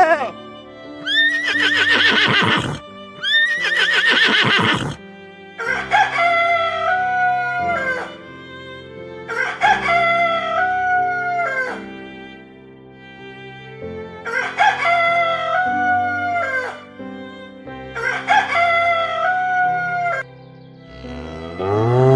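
Rooster crowing six times, each crow lasting about two seconds; the first two are harsher and the last four give a clear stepped cock-a-doodle-doo. Soft background music plays underneath.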